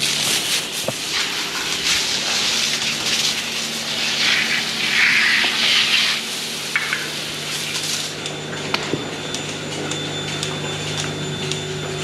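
Water hose spraying and splashing onto a concrete floor for about eight seconds, then easing off, over the steady hum of a running milking machine.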